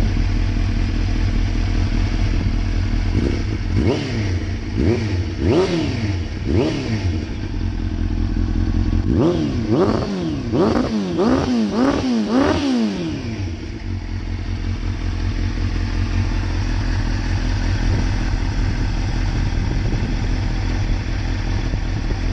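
Suzuki GSX-R 600 inline-four with a Yoshimura exhaust idling, its throttle blipped about four times a few seconds in, then a quick run of about six blips around the middle, each rev rising and falling back before it settles to idle again.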